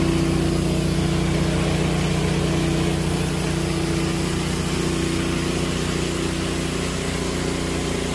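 Pressure washer running steadily: a motor-and-pump drone with a fast pulsing, under the hiss of water jets from a wide spray bar cleaning asphalt.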